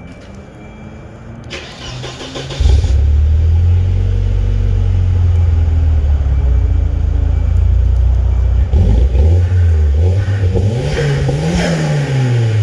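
Volvo 940 Turbo's turbocharged four-cylinder engine through a 3-inch turbo-back JT Superflow exhaust, cranked by the starter and catching about two and a half seconds in, then running at a steady idle. Near the end it is revved, the pitch rising and falling twice, the second rev the higher.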